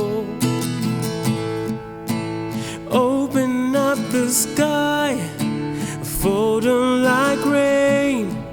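Acoustic guitar strummed in a steady rhythm; a singing voice comes in on a sliding melody about three seconds in.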